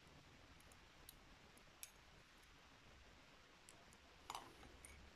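Near silence with a few faint clicks of tweezers and small metal lock parts being handled, the sharpest about four seconds in.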